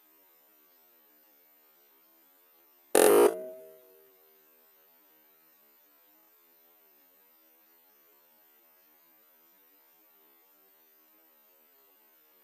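A single shot from an air rifle with a .217 TJ barrel firing a 31.2-grain NSA slug: one sharp crack about three seconds in that dies away within a second with a short ringing. Before and after, only a faint steady hum.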